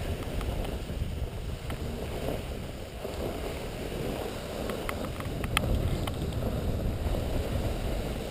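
Steady rushing of a ride downhill over snow at speed, with wind buffeting the microphone and a few sharp clicks about five to six seconds in.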